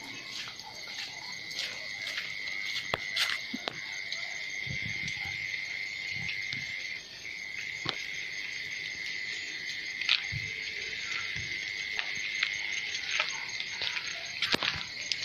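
Night chorus of calling frogs and insects: a steady high trill that holds throughout, with scattered sharp clicks over it.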